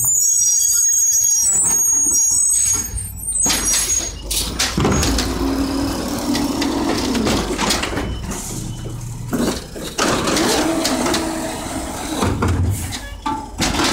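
Mack LE garbage truck with an Amrep automated side-loader: the truck comes to a stop with a high squeal, then the engine and hydraulics work with a steady whine as the side arm lifts a cart and empties it into the hopper.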